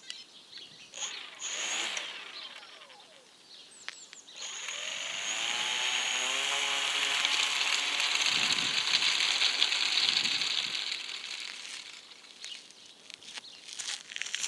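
A homemade foam RC airplane's electric motor and propeller briefly whir up about a second in. About four seconds in the whine rises in pitch as the motor spins up, and it runs steadily while the plane rolls away down a gravel path. It fades out near the end as the plane gets farther off.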